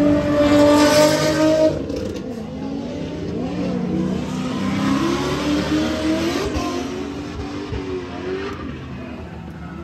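Drift car engine revving hard: held at high revs for about the first two seconds, then rising and falling in pitch, fading toward the end.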